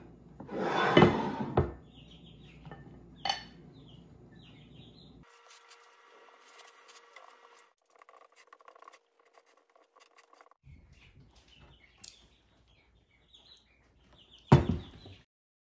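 Kitchen handling noise on a countertop while working pie dough: a burst of clatter from the wooden rolling pin and utensils about a second in, a light knock a couple of seconds later, and a sharp clunk near the end as the ceramic pie dish is set down.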